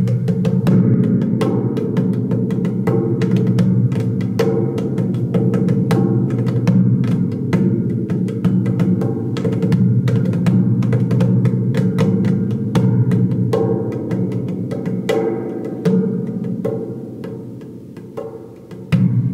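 Svaram large thunder drum (spring drum) played by tapping its membrane with the fingertips: rapid, irregular taps, each adding to a deep, reverberant rumble from the hanging coiled spring. The playing eases off near the end, then one strong hit.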